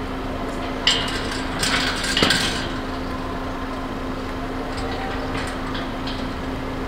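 Metallic clicking and rattling as a steel palisade gate's latch and fittings are worked, loudest about two seconds in, over a steady low hum.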